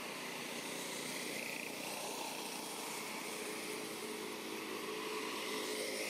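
Steady outdoor background noise with the faint hum of a distant engine, clearer in the second half.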